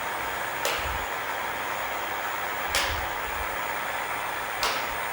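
A 12 V electric motor driving a small axial-flux permanent-magnet generator, running steadily with a whir and a faint high whine. A sharp click comes about every two seconds, three times in all.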